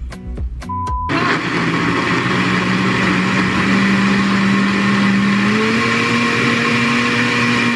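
Countertop blender switching on about a second in and running at full speed, pureeing boiled tomatoes, onion and jalapeños with a little cooking water into salsa. A steady whir with a motor hum that rises slightly in pitch past the middle.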